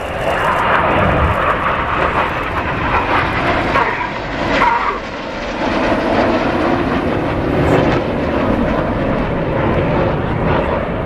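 Jet noise from a formation of BAE Hawk T1 trainers with Adour turbofan engines, passing low overhead. It swells up loud at the start, dips briefly about five seconds in, then comes back up.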